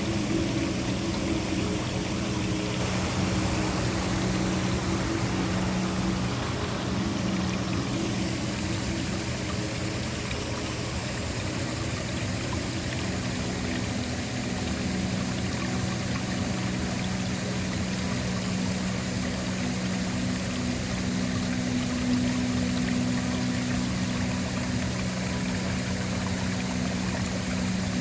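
Waterfall: a steady, continuous rush of falling water. Underneath it, a few low sustained tones of ambient background drone, which change pitch a couple of times.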